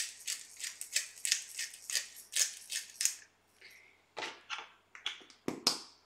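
Hand pepper grinder twisted over a pot, crunching a peppercorn medley in a quick run of short rasping strokes, about three a second. After a brief pause come a few scattered strokes.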